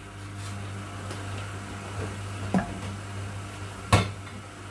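Kitchen utensils knocking against a frying pan and a strainer: a soft knock about halfway through, then a sharp clack near the end as a slotted skimmer is set down in the pan. A steady low hum runs underneath.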